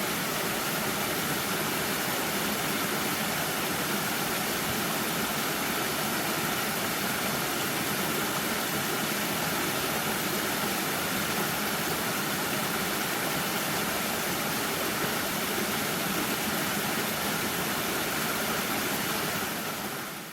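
Steady rush of flowing water, even and unbroken, fading out near the end.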